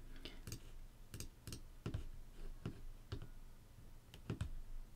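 Faint, irregular clicks of a computer's mouse and keys, about a dozen of them.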